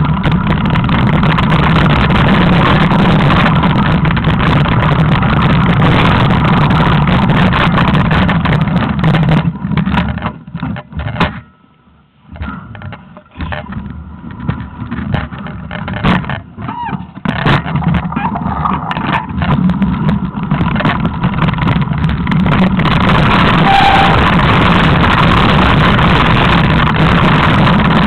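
Wind buffeting the microphone of a camera carried on a mountain bike riding through snow: a loud, steady rumbling noise that falls away for several seconds about ten seconds in, then returns.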